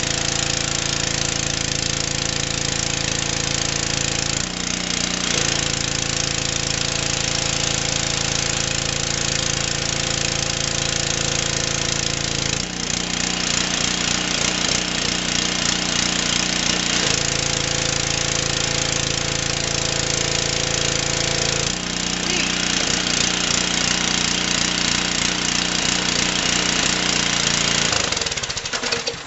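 Craftsman gas pressure washer running at full throttle, its small engine note steady under a dense spray hiss, with the sound changing several times as the load shifts. The engine stops at the very end.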